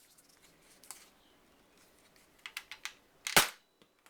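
Spring-powered Pistol Splat foam-dart blaster being primed, a quick run of plastic clicks, then firing a stock Nerf dart with one loud sharp pop near the end. A second sharp snap follows a moment later.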